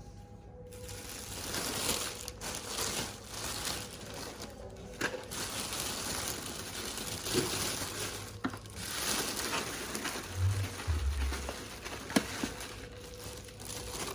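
Packaging crinkling and rustling as a collectible statue is unwrapped and handled, with a few sharp clicks and a brief low thud along the way.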